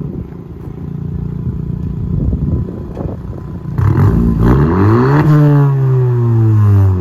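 2021 Honda Civic Sport's four-cylinder engine running with both the rear muffler and the resonator deleted. It idles, then is revved once about four seconds in. The exhaust note climbs, then falls back smoothly as the revs drop.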